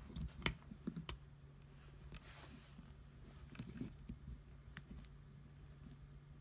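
A 3.5 mm drill bit twisted by hand into a Partner chainsaw's plastic fuel cap: faint scraping with scattered sharp clicks, the loudest about half a second and a second in, and a short rasp about two and a half seconds in.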